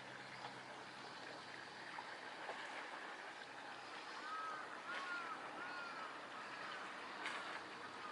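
Small waves lapping steadily in a fishing harbour, with little splashes and ticks of water. About halfway through, a bird calls about four times in quick succession.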